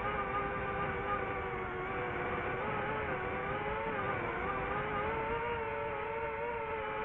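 Multirotor drone's motors and propellers whining steadily in flight, the pitch wavering up and down with the throttle.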